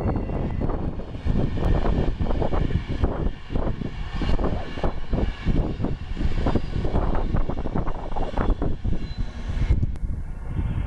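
A train passing at speed: a loud, steady rumble, with gusts of wind buffeting the microphone.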